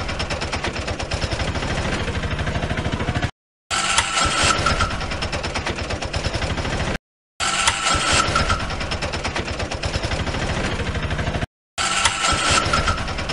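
Engine sound effect: a motor starting and then running with a rapid, even pulsing. The same clip repeats three or four times, each time cut off abruptly by a short silence, and each repeat opens with a brief high tone.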